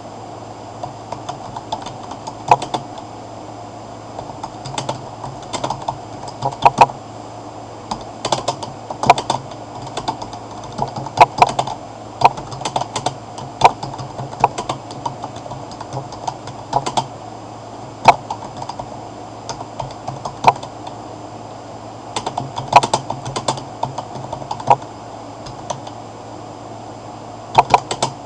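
Computer keyboard typing: irregular runs of key clicks with short pauses between them, over a steady low hum.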